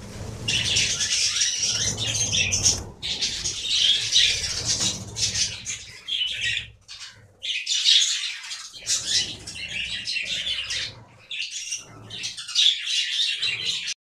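A flock of budgerigars chattering and chirping busily, with short pauses, and wings flapping now and then.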